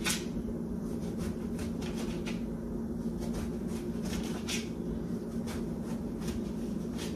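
Kitchen knife slicing a raw eggplant into rounds held in the hand over a plastic plate, a short soft cut about twice a second, over a steady low hum.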